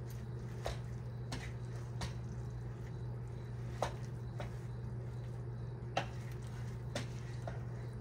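Wooden spoon stirring spinach into a pot of soup, with several light knocks of the spoon against the pot, the sharpest about four and six seconds in, over a steady low hum.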